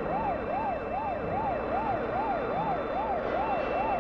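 Emergency siren on a Civil Defense rescue truck wailing up and down in quick, even sweeps, about two a second.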